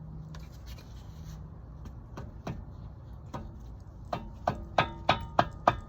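A few scattered knocks, then about four seconds in a quick series of sharp metal-on-metal strikes with a ringing tone, about eight in under two seconds, as the CV axle is tapped in to seat it.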